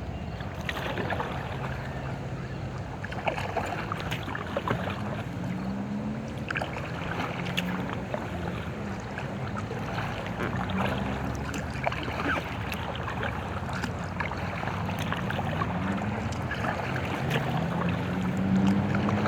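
Kayak paddle strokes: water splashing and dripping off the blades in quick small clicks, with a low rising tone every two or three seconds.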